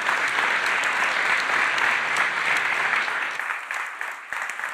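Audience applauding in a large hall, a dense steady clapping that dies down to scattered separate claps near the end.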